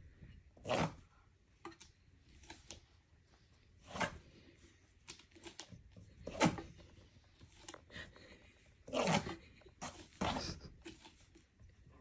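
Short scraping, rattling noises from a sliding door and its round recessed handle, about five of them, as a toddler paws and tugs at the handle and a cat pushes his hand away.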